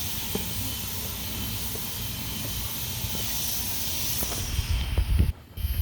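Steady outdoor background noise: a hiss with an uneven low rumble and a few faint clicks, broken by a short gap near the end.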